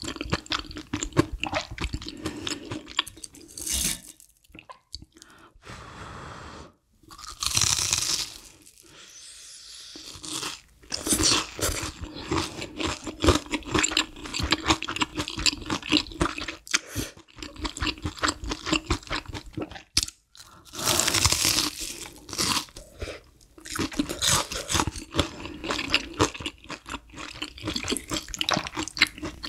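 Close-miked eating: chewing and crunching of a breaded, deep-fried cheese pork cutlet and creamy spicy udon noodles, with louder crunchy bites about eight seconds in and again about twenty-one seconds in.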